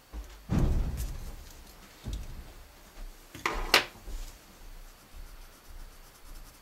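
Drawing tools being handled on a desk: a dull knock about half a second in, a lighter knock about two seconds in, then a quick pair of sharp clicks.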